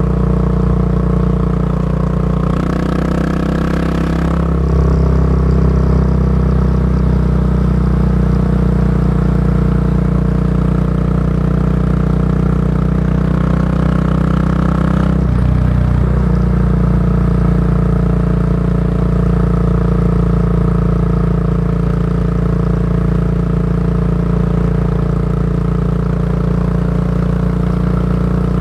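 Yamaha SR400 single-cylinder four-stroke engine running through a Goods Tapered Corn slip-on muffler, heard on the move with a steady exhaust note. Its note shifts about halfway through, and a brief rush of noise comes about three seconds in.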